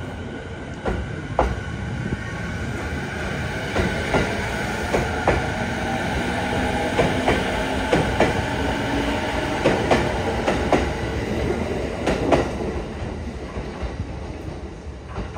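Izukyu 3000 series electric train (ex-JR 209 series) pulling out of the station. Its wheels click over rail joints in a string of sharp clacks, over a steady rumble and a faint motor whine that rises slowly in pitch as it gathers speed.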